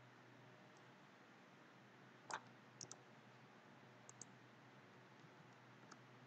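Faint computer mouse clicks over a low steady hum: one click about two seconds in, then two quick double clicks about half a second and two seconds after it, and one faint click near the end.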